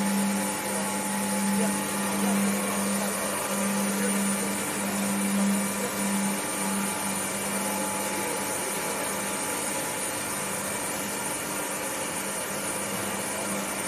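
V-process molding line machinery running: a steady hiss with a low hum that pulses unevenly for the first half and weakens about seven seconds in.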